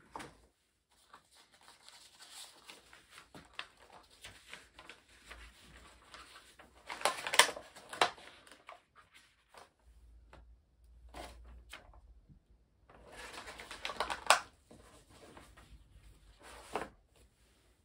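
Paper wrapping and a clear plastic cover crinkling and rustling as a box of Japanese sweets is unwrapped and opened by hand. The crackling is loudest in two bursts, about seven and thirteen seconds in.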